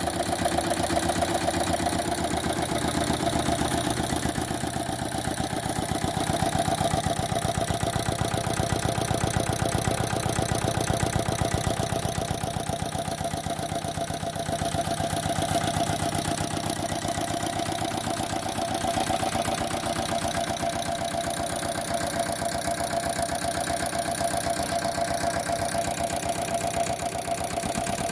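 Lister LT1 single-cylinder air-cooled diesel stationary engine running steadily with an even, rapid beat. The owner says its tappets need adjusting.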